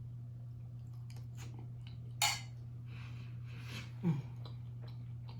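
Close-miked eating sounds: small clicks and chewing, with one loud, sharp, wet finger-licking smack about two seconds in and a short low "mm" about four seconds in, over a steady low hum.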